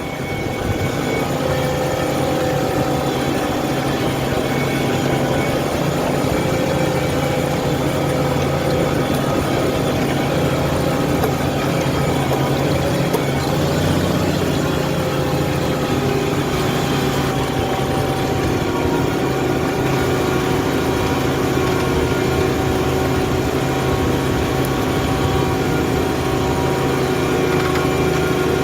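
New Holland T7.210 tractor's six-cylinder diesel engine running steadily while pulling a plough, its note holding nearly even throughout.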